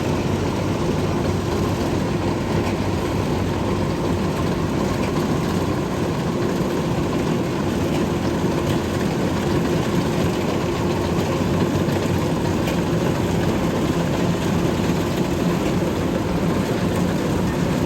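Kubota DC93 combine harvester running steadily as it cuts rice: a continuous, even machine drone with a steady hum that holds without a break.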